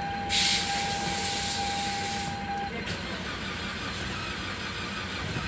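A steady hiss, high in pitch, lasting about two seconds. Under it a steady high tone runs and stops shortly after the hiss.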